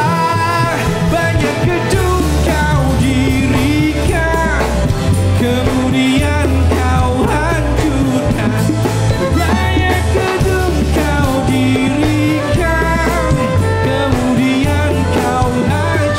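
Kroncong band playing with a man singing over it: plucked strings and a rhythmic bass line under the melody, with violin and guitars in the ensemble.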